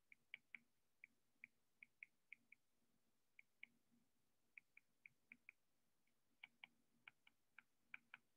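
Faint, irregular ticks of a stylus tip tapping on a tablet's glass screen during handwriting, a few per second with short pauses between words.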